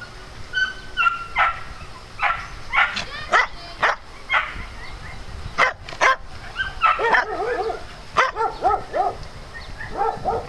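Dogs barking in play: sharp barks in the first half, then a fast run of short, high yips in the second half.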